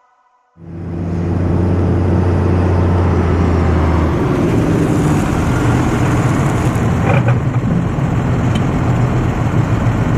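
Engine of a harvest farm machine running steadily under load, coming in abruptly about half a second in, with a low, even hum and a broad rushing noise over it.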